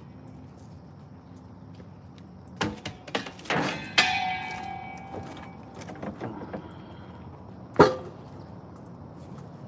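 A few knocks and clatters, then a metallic clang about four seconds in that rings on and fades over a second or so. A single sharp knock follows near the end.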